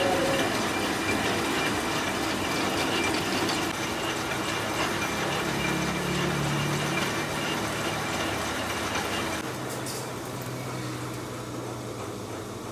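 Belt-driven metal lathe running, its chuck spinning a large steel disc with a steady mechanical whir and hum. About nine and a half seconds in the noise drops as the machine is switched off, followed by a brief sharp click.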